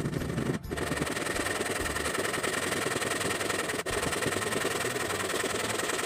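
Water of a pondless waterfall running, a steady rushing and splashing noise that breaks off briefly twice.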